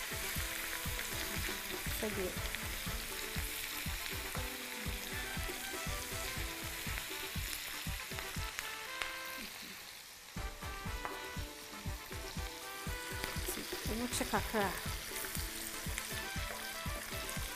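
Onion and sauce stew frying and sizzling in oil in a frying pan, stirred with a wooden spoon that scrapes and knocks against the pan. The sizzle dips briefly about ten seconds in.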